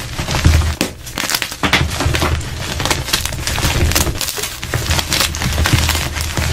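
Blue-dyed and white gym chalk blocks crushed and crumbled in bare hands: dense crunching and crackling as the blocks break apart and the pieces fall.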